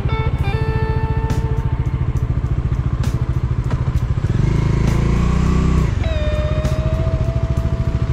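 Bajaj Dominar 400 single-cylinder engine running at low revs with a fast, even thump, revving up for a couple of seconds about four seconds in as the bike pulls away, then settling back. Background music with a plucked melody plays over it.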